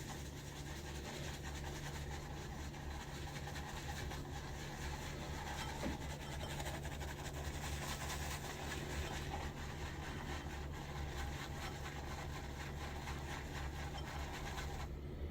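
Badger shaving brush swirling and scrubbing thick shaving cream in a dry bowl, a steady soft bristly swishing over a low electrical hum.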